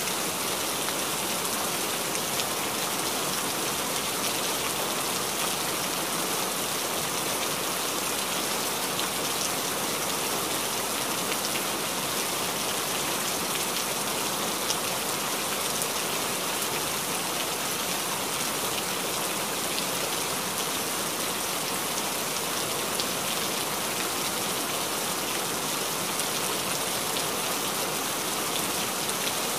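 Steady, even hiss like falling rain, with faint scattered ticks.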